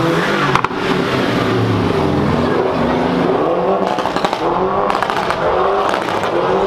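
Performance car engine revving and accelerating away, its pitch rising in repeated sweeps, with a few sharp exhaust pops around the middle.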